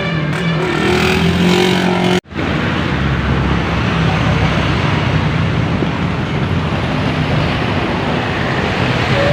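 A bus's pitched horn sounding for about two seconds, broken off by a sudden dropout, then the steady roar of engine and road noise as buses pass close by.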